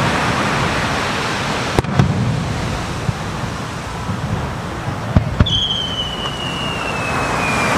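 Aerial fireworks bursting with sharp bangs, a pair about two seconds in and another pair about five seconds in, over a steady wash of sea waves. Just after the second pair a whistling firework gives one long whistle that slowly falls in pitch.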